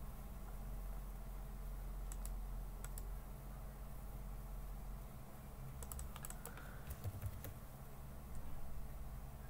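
Computer keyboard keystrokes and clicks: a few single clicks, then a quick run of them about six to seven and a half seconds in, over a low steady hum.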